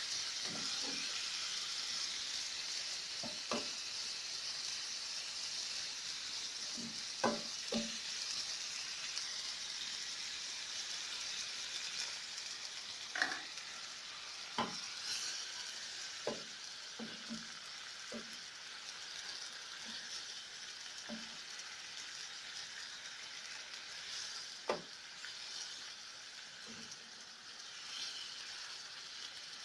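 Food sizzling in a hot frying pan while being stirred, with scattered sharp taps of a utensil against the pan. The sizzle slowly dies down.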